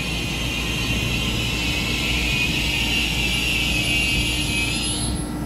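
Taiwan Railway EMU3000 electric multiple unit pulling slowly into the platform: a steady high whine over the low rumble of the train. The whine rises briefly and cuts off about five seconds in as the train slows.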